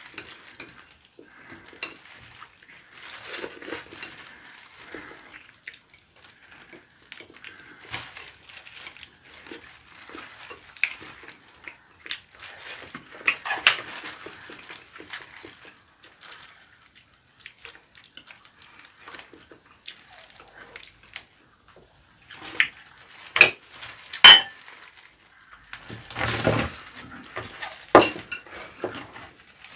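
Tableware sounds of a meal: wooden chopsticks and a spoon clicking and scraping against plates and glass bowls, with soft scattered handling noise from food being picked apart. A few sharp, loud clinks come in the last several seconds.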